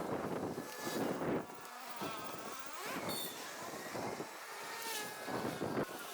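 Small petrol engine of a garden power tool, buzzing and surging up and down in pitch about once a second as it is worked.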